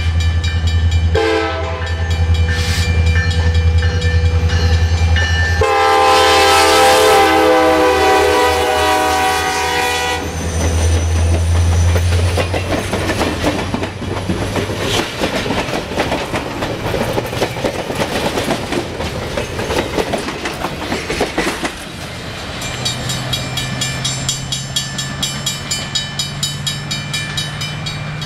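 Alaska Railroad passenger train passing at speed behind SD70MAC diesel-electric locomotives. Their horn sounds a short chord, then a long blast about six seconds in, over the locomotives' engine rumble, followed by the steady clatter of the passenger cars' wheels on the rail joints. Near the end it gives way to a quieter steady hum with a regular beat.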